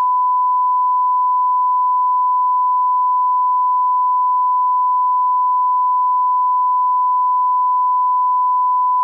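A 1 kHz reference test tone from a bars-and-tone test signal: a single steady pure beep held without a break.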